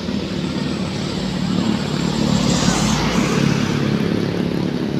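Road traffic: a heavy vehicle passing close, its engine and tyre noise swelling to a peak about three seconds in and then easing off.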